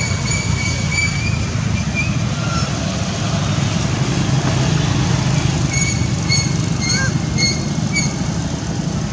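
Steady low rumble of outdoor background noise, like distant traffic, with a held high note early on and then a series of short high chirps about twice a second near the end.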